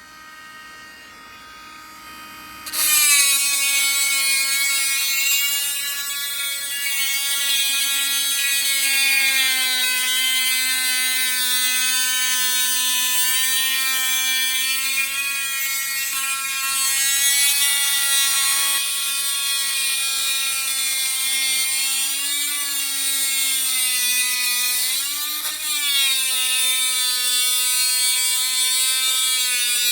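Dremel Stylo+ cordless rotary tool with a steel tile-cutting bit, grinding a hole into a thick seashell at speed 5. After a quiet first three seconds it comes in loud as a steady high motor whine with a hiss of grinding, its pitch sagging briefly twice near the end as pressure on the tough shell loads the motor.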